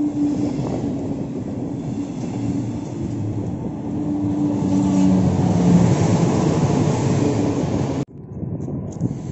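Double-deck regional train with an electric locomotive at the rear passing close by: rumbling wheels on the rails with an electric hum, loudest as the locomotive goes past. Near the end it cuts off abruptly, leaving wind on the microphone.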